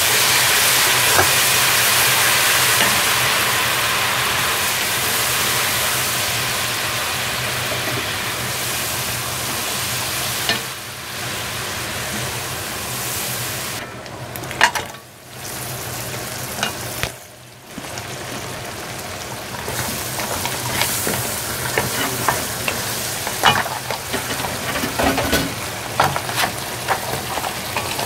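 A garlic-and-shallot sauce with fish sauce sizzling in a hot pot, loudest in the first few seconds and stirred with a wooden spatula. The sizzle drops away twice around the middle. Through the last part, scattered clicks and knocks of the spatula against the pan sound over the frying.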